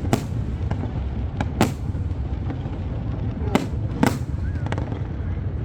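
Fireworks going off: a handful of sharp bangs at uneven intervals, the strongest near the start, about a second and a half in, and around three and a half and four seconds in, over a steady low rumble.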